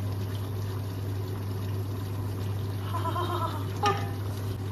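Chicken curry simmering in a pan on a gas hob at high heat: a steady bubbling hiss over a constant low hum. A brief voice comes about three seconds in, and a sharp knock follows just before four seconds.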